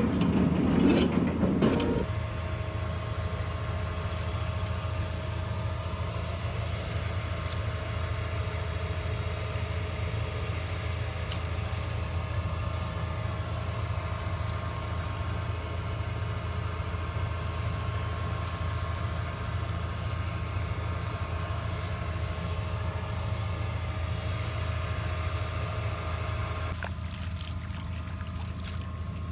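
Piling machine's engine running steadily with a low hum, louder and rougher for the first couple of seconds; a faint whine above the hum stops near the end.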